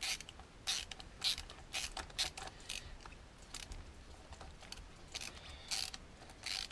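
Hand ratcheting screwdriver with a T15 Torx bit clicking in short irregular bursts as it works out a stripped 3 mm Allen bolt.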